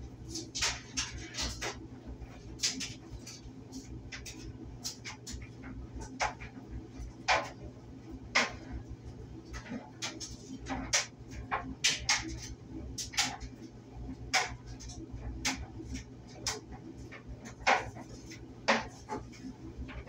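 Electric clothes dryer running: a steady low hum from the motor and turning drum, with irregular sharp clicks and knocks, one to a few each second, as it tumbles.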